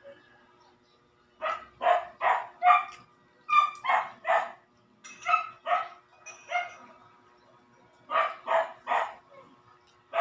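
A dog barking in runs of three or four barks, about two or three a second, with short pauses between the runs.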